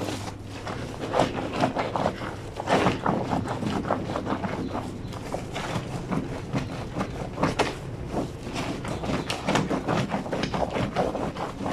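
A wet blanket being scrubbed and worked by hand on a granite washboard sink: irregular wet rubbing and soft thuds, several a second.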